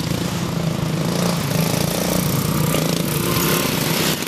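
Small engines of racing riding lawn mowers running as the mowers pass close by: a steady drone that swells a little shortly before the end.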